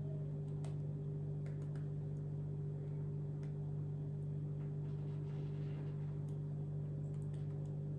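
A steady low hum, with a few faint light clicks from a silicone pastry brush dipping into a small ceramic bowl of beaten egg yolk and dabbing it onto soft bread dough.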